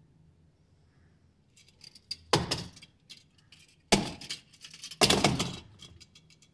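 Small hard pieces clattering and clinking together: three loud clatters a little over a second apart, each dying away quickly, with lighter clicks in between.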